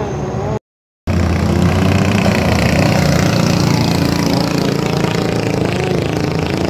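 Racing longtail boat's engine running hard at steady high revs as the boat speeds past on the water. The sound drops out completely for about half a second near the start, then comes straight back.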